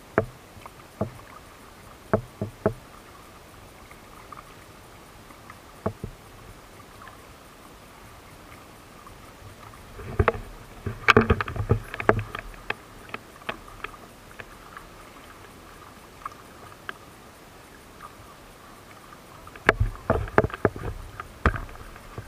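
Kayak paddles dipping and splashing in the water in scattered short strokes, busiest about ten seconds in and again near the end.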